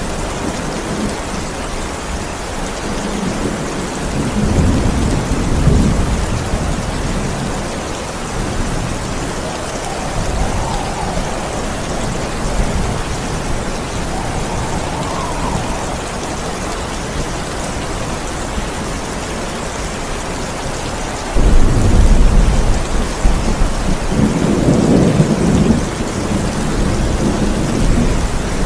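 Steady heavy rain with thunder. A low rumble rolls in about four seconds in, and a sudden loud thunderclap comes about two-thirds of the way through, rumbling on for several seconds.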